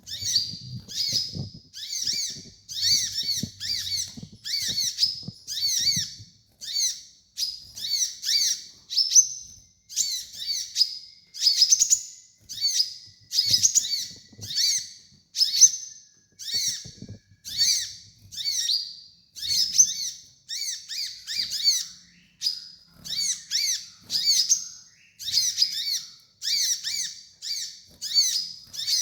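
Kolibri ninja sunbird song: short, high, twittering phrases of quick chirps, repeated about once a second.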